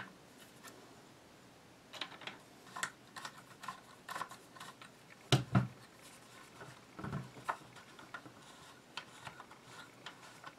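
Scattered light clicks and taps of tools and parts of a Tavor X95 rifle being handled, as the slotted pistol-grip screw is worked, with one louder knock about five seconds in.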